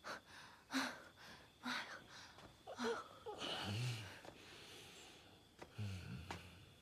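A drunk man's breathy vocal sounds: short gasps and breaths about once a second, then a low grunt around four seconds in and another near the end.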